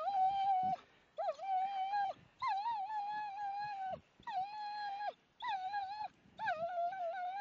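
German Shepherd whining during a tug-of-war game: a run of about six long, high whines, each lasting up to about a second, with short breaks between them.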